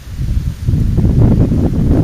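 Wind buffeting the microphone: a loud, low rumble that swells about two-thirds of a second in.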